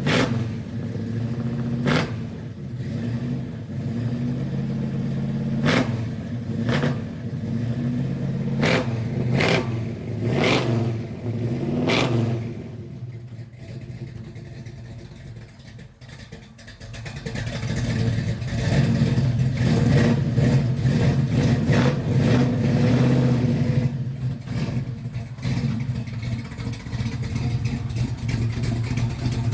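Chevrolet Chevelle's engine idling and revved in a series of quick blips over the first twelve seconds. It then falls quieter for a few seconds and comes back louder and steadier.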